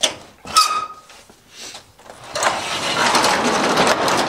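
A sectional garage door being opened by hand: a sharp click and a clack with a brief squeak at the start, then, about two seconds in, a steady rumble as the door rolls up along its tracks.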